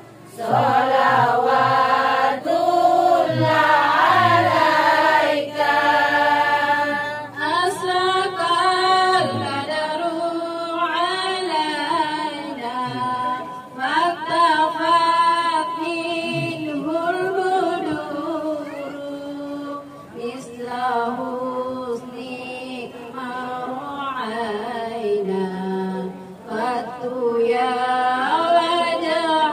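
Women singing sholawat, Islamic devotional songs in praise of the Prophet, without instruments. The first seven seconds or so are fuller, with several voices together; after that one woman's voice carries the melody, with long gliding notes.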